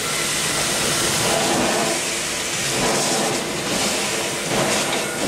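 Horizontal stationary steam engine with a large flywheel running under steam: a steady rush and hiss of steam with a faint, slow, recurring beat.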